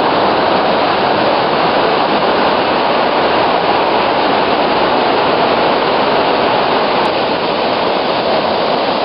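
Waterfall heard from close up: a loud, steady rush of falling water.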